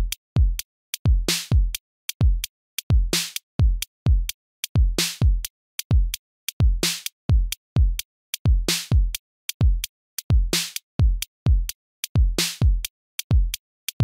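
Background music: an electronic drum-machine beat of deep kick drums, ticking hi-hats and a snare or clap, repeating in a steady loop with no other instrument standing out.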